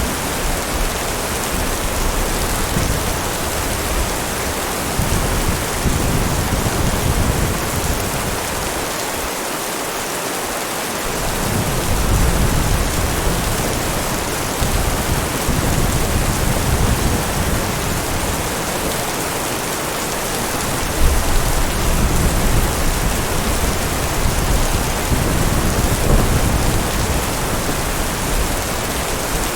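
Heavy rain falling steadily, with low rumbles of thunder swelling and fading, strongest about twelve seconds in and again in the last third.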